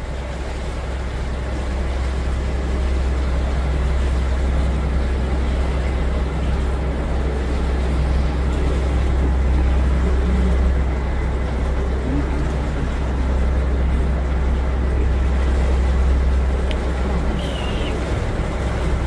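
A cruise boat's engine running steadily under way, a low rumble with water and wind noise that grows louder over the first couple of seconds and then holds.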